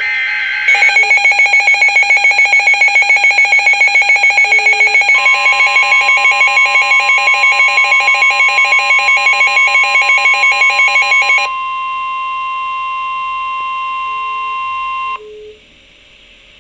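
Emergency Alert System attention tones for a flood warning: a loud pulsing electronic alarm beeping about five times a second. About five seconds in, a steady single high tone joins it. The pulsing stops near twelve seconds, leaving the steady tone alone until it cuts off about fifteen seconds in.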